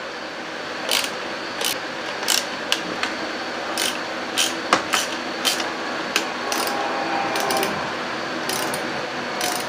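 Hand ratchet working a bolt on the engine in short, uneven strokes: a string of sharp clicks, roughly one or two a second, over a steady hum.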